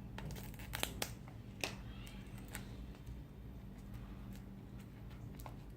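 Handling noise from a small product box: a few sharp, light clicks and taps, with the strongest in the first three seconds, over a faint steady low hum.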